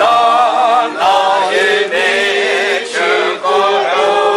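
A congregation singing a hymn together, men's and women's voices in long held notes.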